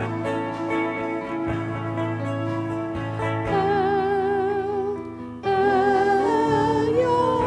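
Live worship music playing between sung lines: held chords from the band, with a sustained melody note with vibrato coming in about halfway.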